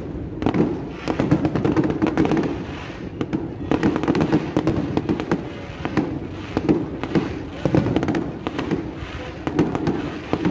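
Aerial fireworks bursting in quick succession: a dense, continuous run of bangs and crackles, several a second.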